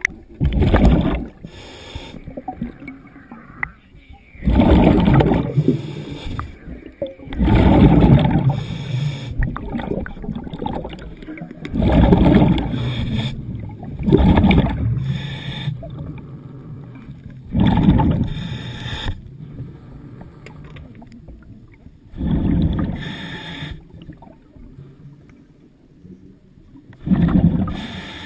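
Scuba diver breathing through a regulator underwater: a rush of exhaled bubbles about every three to five seconds, with quieter stretches between.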